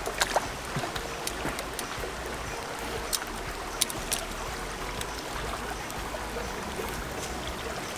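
Wood fire crackling, with scattered sharp pops over a steady hiss; the pops come mostly in the first half.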